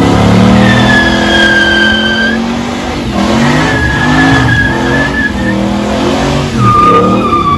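Toyota HiAce van sliding on a wet skidpan: the engine revs up and down while the tyres give three long squeals, each sagging slightly in pitch.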